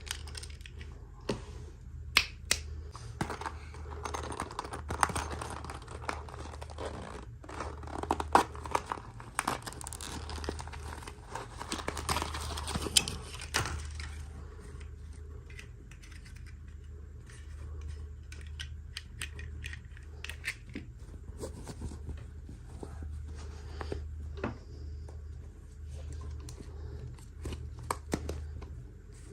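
Toy packaging being handled and opened: crinkling and tearing with sharp plastic clicks, busy for the first half and then thinning to occasional taps, over a steady low hum.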